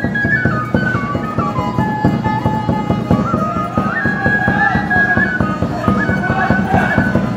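Wooden flute playing a stepping traditional Andean melody over quick, steady percussive beats.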